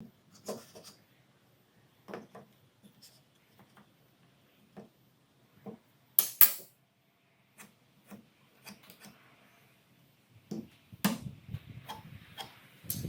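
Wood and hand tools being handled on a workbench: scattered light knocks, taps and scrapes, with a sharper clatter about six seconds in and another knock near the end.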